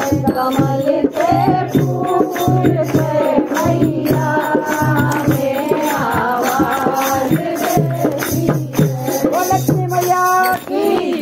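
Hindi devotional bhajan: a voice singing a wavering melody over a steady beat of percussion.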